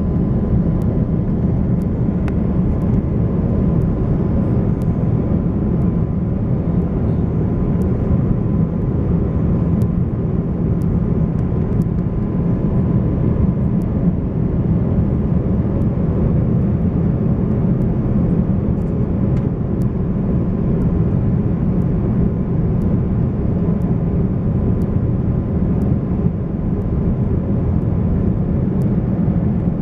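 Airliner cabin noise in an Airbus A330 on descent: the steady roar of the Rolls-Royce Trent 700 engines and rushing air, heard from a window seat beside the engine, deep and even, with a faint steady hum above it.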